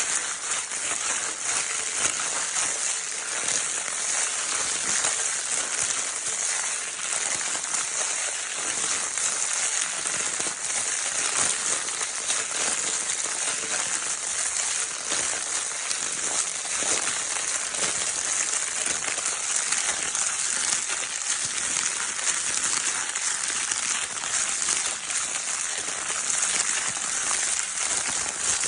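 A baby's crinkle-paper toy being crumpled and rustled without pause: a dense, crisp, high crackle of many small crinkles at an even level.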